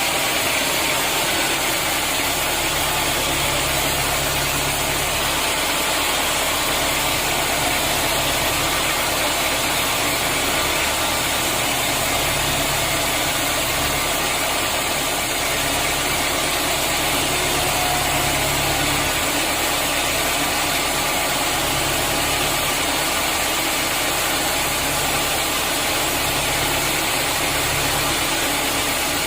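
Sawmill machinery running steadily, a continuous mechanical noise over a low engine hum that swells and eases every few seconds.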